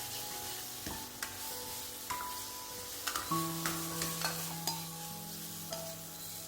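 Food sizzling in a hot iron wok as a spatula stirs and scrapes through it, with sharp taps now and then.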